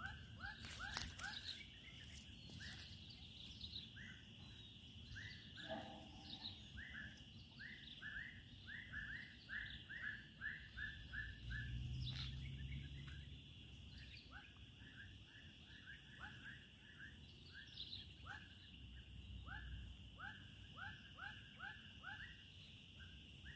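Outdoor riverside ambience: a steady, high insect drone with a run of short chirps, several a second. A couple of sharp clicks sound about a second in.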